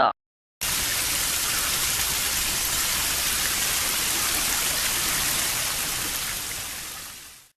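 A steady hiss of rushing water, like rain or a river, that starts abruptly just after the start and fades out near the end.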